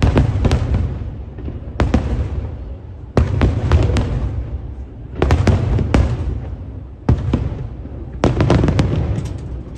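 Fireworks exploding in quick volleys: clusters of sharp cracks and booms every second or so, each trailing off in a low rumble.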